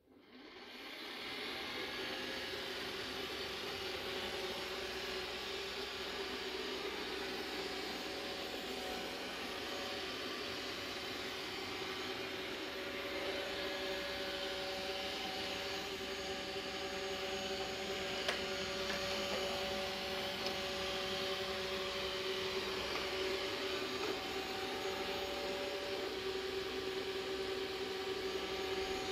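Dreame D9 robot vacuum's suction fan spinning up over about two seconds, then running steadily with a hum and a whine above it, with a couple of light clicks about two-thirds of the way through.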